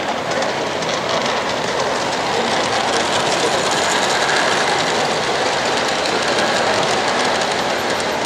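G-scale model train rolling past on brass track: a steady rolling rumble of metal wheels on rail with rapid clicking as the wheels cross the rail joints.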